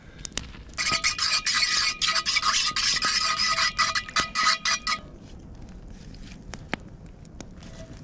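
A metal spoon stirring and scraping around the inside of a cast-iron camp oven, mixing gravy into the meat juices, with rapid strokes and a metallic ring from the pot. The stirring stops about five seconds in.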